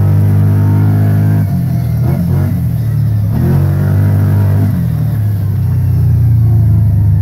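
Engine of an off-road vehicle working hard up a steep dirt hill, running steady and loud, with its pitch dipping and rising again a couple of times as the revs change on the climb.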